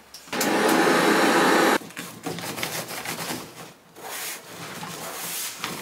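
Cordless handheld vacuum cleaner switched on, running steadily for about a second and a half with a faint rising motor whine, then cut off abruptly. After that comes a quieter, irregular scratchy rustle of a lint roller's sticky sheet rolled over fabric.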